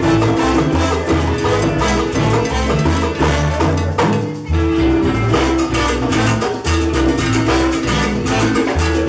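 Live salsa band playing, with a repeating bass line under hand drums and percussion. The band drops away for a moment about four seconds in.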